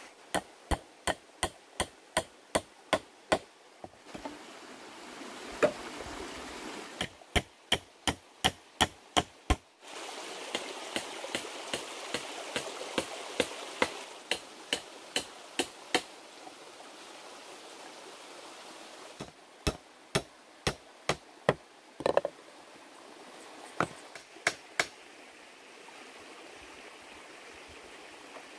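Repeated sharp strikes of a tool on a hard material, about three a second, in several runs with pauses between. A steady rush of flowing water runs underneath.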